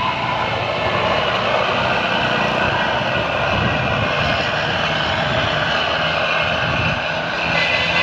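Steady drone of vehicle engines with wind rush, heard on the move in traffic.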